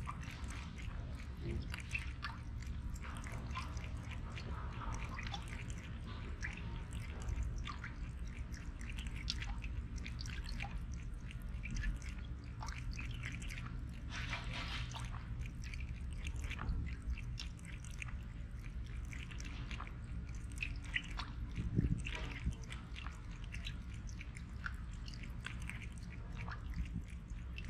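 A cat's mouth noises close to the microphone: a long run of small, irregular wet clicks.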